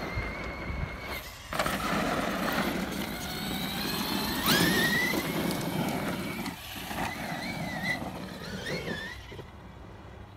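Cen Reeper 1/7-scale RC monster truck driving on dirt: its high-pitched electric motor whine rises and falls with the throttle over the rush of tyres on loose dirt. The whine climbs sharply about halfway through.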